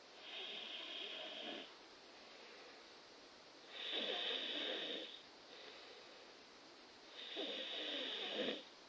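A sleeping person snoring: three snores, each about a second and a half long, coming about every three and a half seconds.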